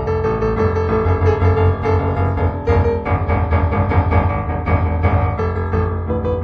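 Background music: improvised solo piano playing sustained chords over a low bass.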